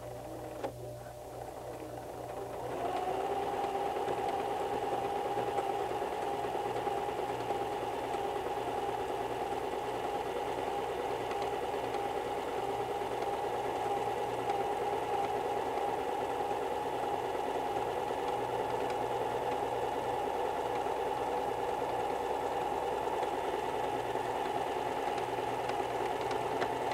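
White 1735 electric sewing machine running and stitching fabric on its straight overlock stretch stitch. A steady mechanical hum, quieter for the first two and a half seconds, then running at an even speed.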